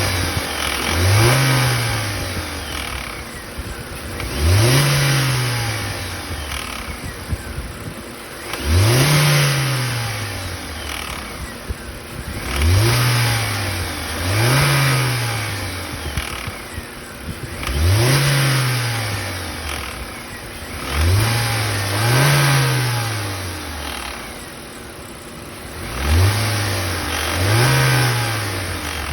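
Hyundai Accent engine being blipped again and again, each rev rising and falling away, roughly every three to four seconds and sometimes twice in quick succession. The revving brings out the rattling noise that the title puts down to the A/C compressor.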